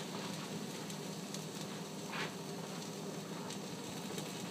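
Faint, steady sizzle and crackle from a hot nonstick frying pan coated with cooking spray, preheating before the vegetables go in.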